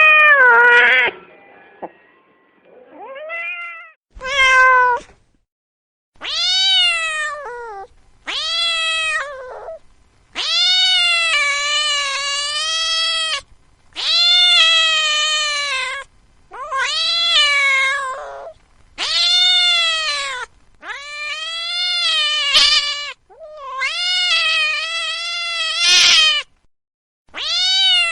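A cat meowing over and over: about a dozen drawn-out meows, one after another with short pauses, each rising and then falling in pitch, some held for two or three seconds.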